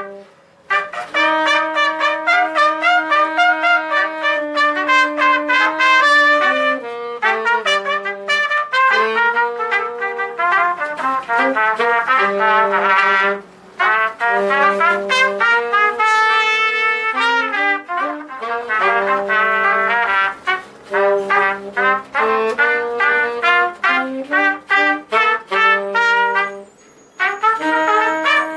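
Live small horn ensemble, a saxophone and two trumpets, playing a tune together with sustained low saxophone notes under the trumpet lines. The playing breaks off for short pauses between phrases, just after the start, about halfway through and near the end.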